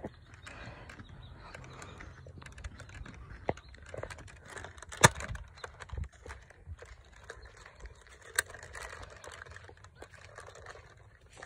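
Footsteps on a dry dirt trail strewn with pine needles, with a few sharp clicks or knocks, the loudest about five seconds in and another a little after eight seconds.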